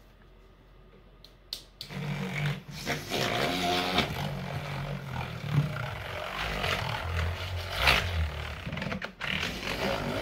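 Handheld battery milk frother whirring as it whisks melted oils and butters with colloidal oats and arrowroot powder in a plastic bowl. It starts about two seconds in, drops to a lower pitch partway through and cuts out briefly near the end.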